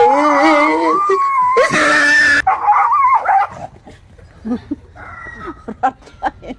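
A dog whining and yelping in fright: a loud wavering cry that rises in pitch, with a harsh yelp about two seconds in. After about three and a half seconds it gives way to quieter scattered clicks and scuffs.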